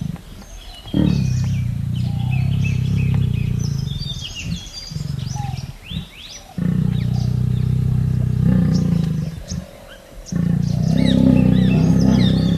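Bengal tiger making deep, low calls in several long stretches that start and stop abruptly. Songbirds chirp over them.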